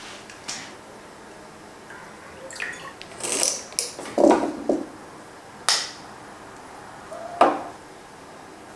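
Objects handled on a table: a few light knocks and sharp clicks spread over several seconds. They come from a glass bottle being set down and a wireless-earbud case being opened and snapped shut.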